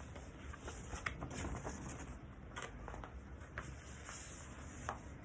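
Soft rustling and scattered light crackles of a paper album poster being handled.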